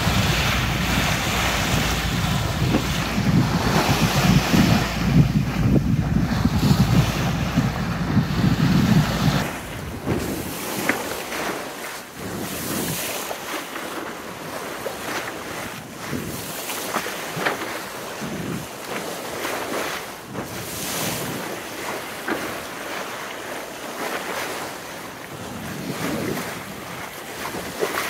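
Water rushing and splashing along a sailboat's hull as it moves through the sea. Wind buffets the microphone heavily for the first nine seconds or so. It then drops suddenly to a quieter, more broken splashing.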